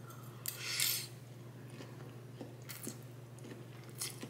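A person eating spaghetti: a short slurp as noodles are drawn in about half a second in, then quiet chewing with a few soft wet clicks.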